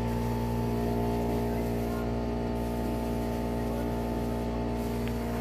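A steady, unchanging droning hum made of several held tones.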